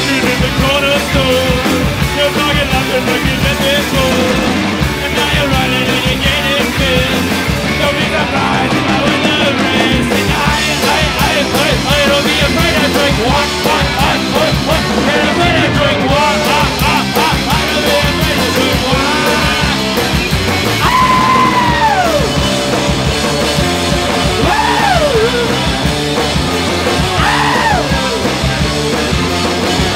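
Live punk rock band playing loud, with electric guitar, bass guitar and drum kit. In the second half a few high sliding notes fall away in pitch.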